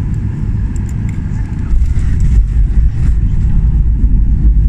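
Low, steady rumble inside a Boeing 737-800's passenger cabin as the airliner rolls out along the runway after landing, growing louder about two seconds in.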